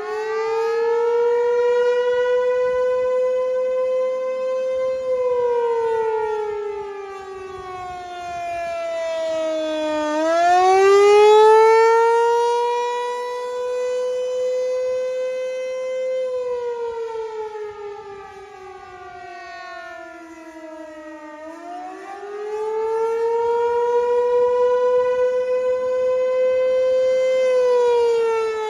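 American Signal T-128 outdoor warning siren sounding a wail: a single tone climbs, holds for about five seconds, then slides down, repeating about three times. Its loudness swells and fades slowly, with echoes.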